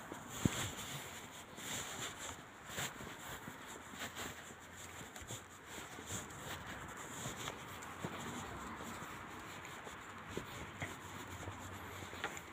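Faint, slow footsteps on a concrete platform, a short scuff or tap every second or so, over soft rustling from the phone being handled.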